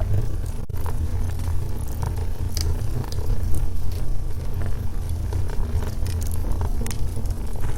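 Wood fire burning in a fireplace: a steady low rumble with scattered, irregular crackles and pops from the burning logs.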